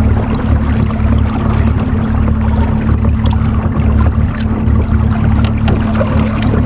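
Electric trolling motor humming with a steady tone under a low, unsteady rumble, with water splashing and trickling around the hull.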